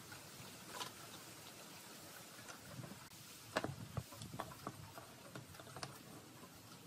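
Thin wooden boards being set down on a workbench top and pushed edge to edge: a few light wooden clicks and knocks, most of them clustered about halfway through.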